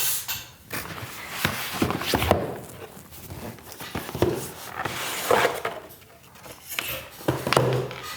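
Packaging of a boxed product being opened and handled: rustling of cardboard and plastic with scattered light knocks and clicks.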